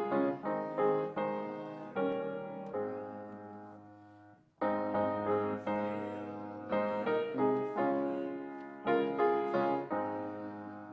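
Piano playing slow chords that are struck and fade away, with a short break about four and a half seconds in before the playing resumes.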